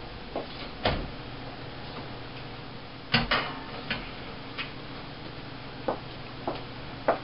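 Oven door and rack clunking and clicking as an aluminium foil loaf pan of fruitcake batter is loaded into a wall oven: a few sharp knocks spread through, the loudest a double knock about three seconds in.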